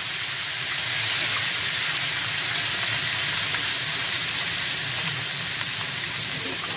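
Hot oil sizzling steadily in a kadai of browned onions and ginger-garlic paste, with red chilli powder just added; the watery paste keeps the oil spitting hard.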